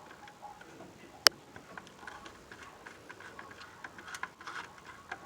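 Light clicks and taps of hands working wires and their terminals on a furnace control board, with one sharp click about a second in.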